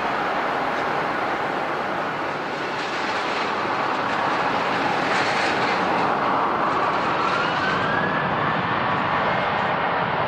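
Jet airliner engines running: a steady rushing noise, with a whine that rises in pitch about six seconds in.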